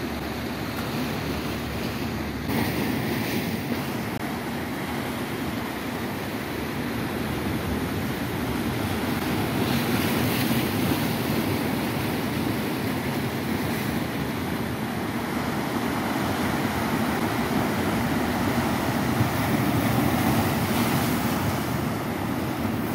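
Sea surf breaking over rocks: a steady rushing wash that swells louder a few times as waves come in.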